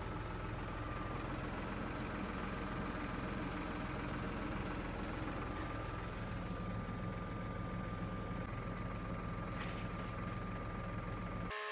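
Tractor engine running steadily at an even, low speed, then cut off abruptly just before the end.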